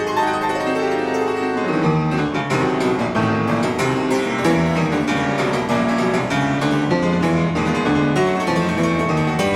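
Background music: a quick tune of short keyboard notes, with a lower bass line coming in about two seconds in.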